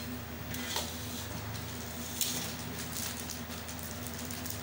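Faint handling sounds of hands working a small item among puja plates: a couple of soft clicks and light rustling, over a steady low hum.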